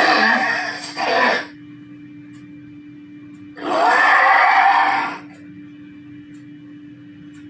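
Fire-dragon roar sound effect: harsh, screaming roars in bursts of about a second and a half over a faint steady hum. One roar is fading just after the start and is followed by a short burst about a second in; another roar comes about three and a half seconds in.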